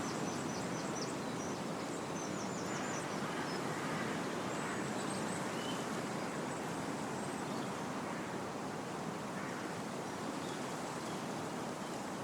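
Wind blowing steadily through trees, the leaves rustling. A small bird calls in quick runs of short, high chirps during the first few seconds.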